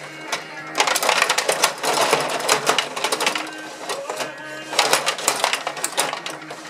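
Gretzky rod table hockey game in play: metal rods pushed, pulled and spun, rattling the plastic players, with the puck clacking, in a fast, dense clatter that eases briefly about four seconds in.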